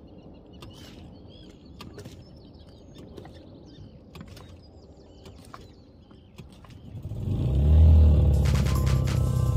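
Faint bird chirps and a few clicks, then about seven seconds in the boat's petrol outboard motor comes in loud, revving up and then running steadily.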